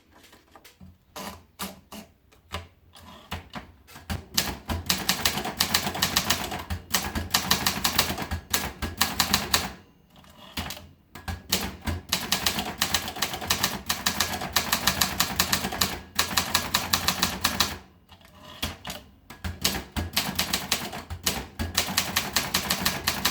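Optima Elite typewriter being typed on: runs of rapid key strikes clacking in bursts, with a couple of short pauses between lines.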